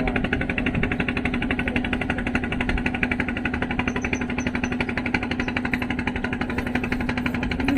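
A small fishing boat's engine running steadily, with a rapid, even chugging beat.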